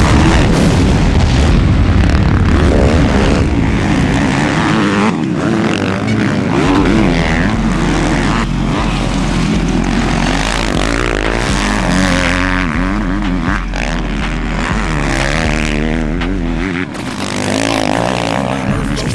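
Motocross dirt bike engines revving up and down hard as the bikes race along the dirt track, the pitch repeatedly rising and falling with the throttle.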